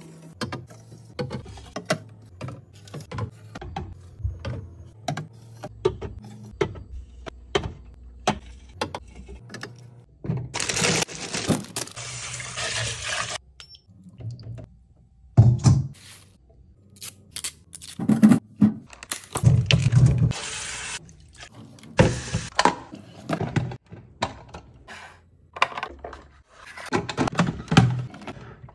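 Aluminium drink bottles clinking and being set down on glass refrigerator shelves in a run of sharp clicks and knocks, then a kitchen tap running into a bowl in the sink for a few seconds, with more splashing and clatter of fruit being washed later on.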